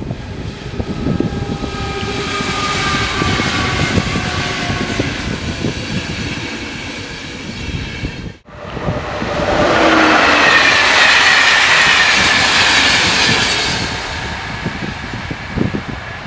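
A ČD class 471 double-deck electric multiple unit passes at speed with wheels clattering on the rail joints and an electric whine that falls in pitch as it goes by. After a sudden cut, a locomotive-hauled passenger train passes louder, again with a falling whine, and fades as its coaches draw away.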